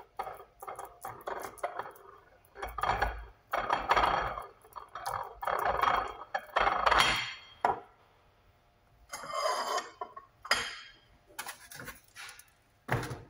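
Dishes and food containers being handled on a kitchen counter: irregular clinks, knocks and scraping, busiest in the middle and pausing briefly a little past halfway.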